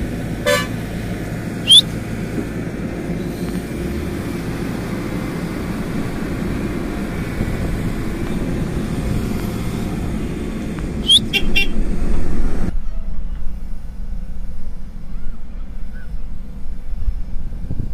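Excavator's diesel engine running with a steady low drone while loading soil into a tipper truck, with a few short high rising squeaks near the start and again about two-thirds through. Near the end the sound turns duller, only the low rumble remaining.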